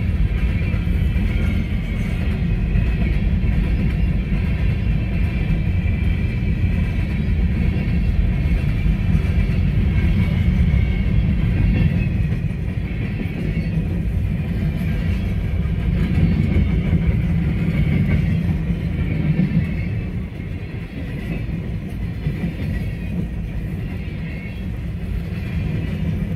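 Freight cars of a long train rolling past on the rails: a steady, loud rumble of wheels and cars, easing a little about twenty seconds in. Heard from inside a vehicle with the heater running.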